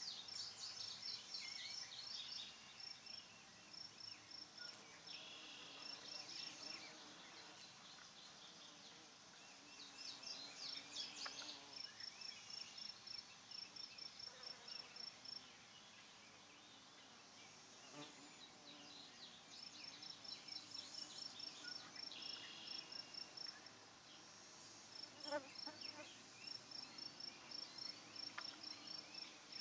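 Faint high chirping: runs of a quick, evenly pulsed chirp, with clusters of rapid chirping notes every several seconds.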